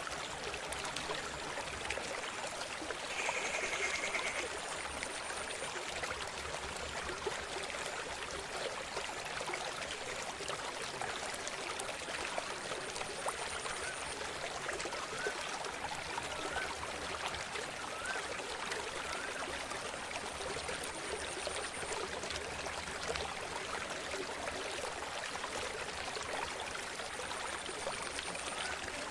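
River water flowing and trickling steadily. A brief high call is heard about three seconds in, and a few fainter wavering calls come about halfway through.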